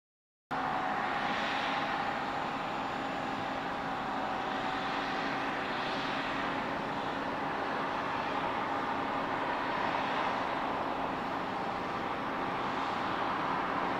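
Steady jet whine and roar of a Boeing 767-300ER airliner during pushback by a tug, with a few faint steady tones over the noise. It starts abruptly about half a second in.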